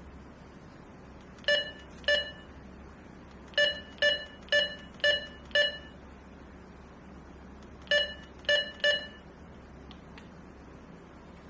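Retevis RB628 walkie-talkie keypad beeping as its buttons are pressed: ten short beeps in three groups, two, then five about half a second apart, then three.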